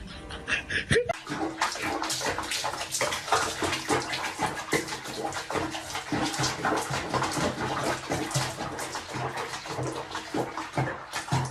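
Water splashing, a rapid irregular run of small splashes starting about a second in.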